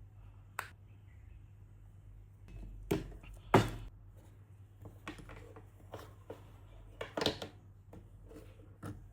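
Handling of small items during an unboxing: a scatter of clicks and knocks with some rubbing, the loudest about three and a half seconds in.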